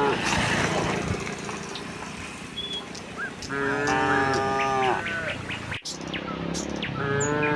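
Cows mooing: one long moo a little past the middle, and another beginning near the end, with small birds chirping.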